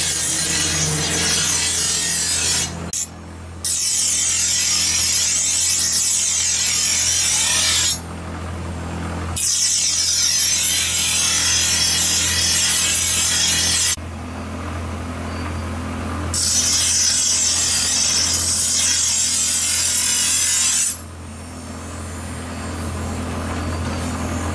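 Steel sword blade ground on a spinning grinding wheel: a loud grinding hiss in four long passes of about four to five seconds each, with short breaks where the blade is lifted, over a steady low hum. The grinding stops near the end and only the hum goes on.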